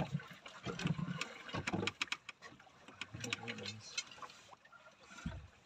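Irregular knocks and clicks on a small wooden fishing boat while a fisherman hauls on a hooked fish, with low thumps near the start and about five seconds in and a short murmur of a voice about three seconds in.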